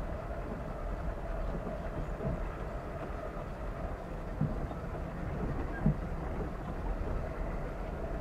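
A car's steady road and engine rumble while driving, with two short thumps, one about four and a half seconds in and one about six seconds in.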